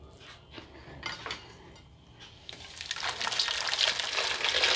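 Thin yogurt and gram-flour karhi batter poured from a blender jar into a metal pot: a steady liquid pour that starts about halfway through and grows louder. Before it come a few light knocks as the jar is taken off its base.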